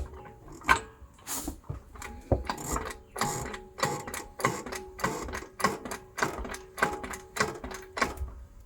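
Irregular metallic clicks and clanks, a few a second, from hand tools working on the exhaust hanger and its rubber mount, with a faint ringing between the knocks.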